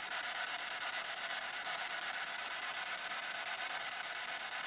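Steady electronic static hiss through a small speaker, the white noise of a spirit box used to catch answers.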